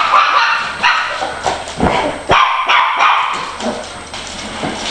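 Dogs barking and yipping over and over in excited play barking.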